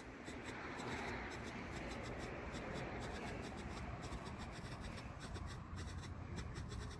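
Winda Liberty Fountain, a ground firework fountain, burning with a steady scratchy hiss of its spark spray.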